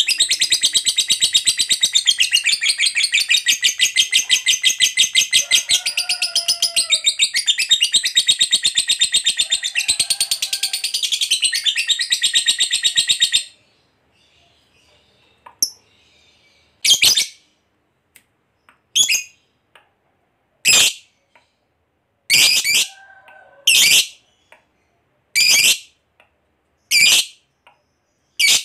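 Lovebird's 'ngekek panjang', the long trill prized in a bird in full song: a rapid, unbroken chattering trill that runs for about thirteen seconds and stops abruptly. After a short pause, single sharp chirps follow about every one and a half to two seconds.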